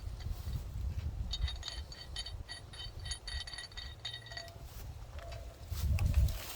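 Light metallic clinking and ringing, many small taps over about three seconds, as a steel D-ring shackle and its screw pin are handled. A low handling rumble runs underneath and gets louder near the end.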